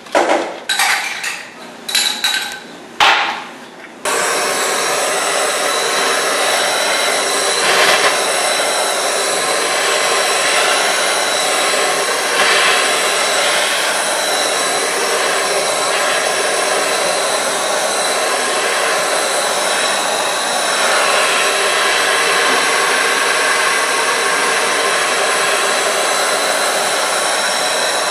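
A few sharp metallic knocks, then about four seconds in a handheld gas blowtorch starts up with a loud, steady hiss as its flame heats a seized, rusted drum brake to free it.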